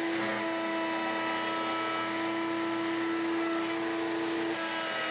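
Table-mounted router spinning a bearing-guided flush-trim bit at full speed as a curved wooden workpiece is fed along it against its template. It gives a steady whine, and the pitch shifts slightly near the end.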